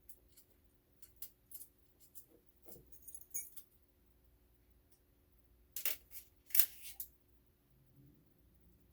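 Scattered clicks and clacks of small hard objects being handled, with a brief light metallic jingle a few seconds in and a cluster of louder clacks after the middle, over a faint steady hum.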